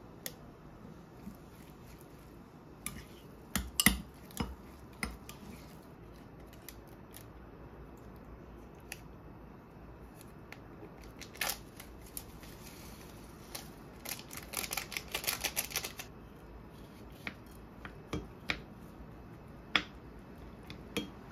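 Small kitchen handling sounds: scattered sharp clicks and taps of utensils and packaging, and a run of rapid crinkly ticks about two-thirds through, as a seasoning sachet is emptied over a plate of rice and mixed in with a plastic rice paddle.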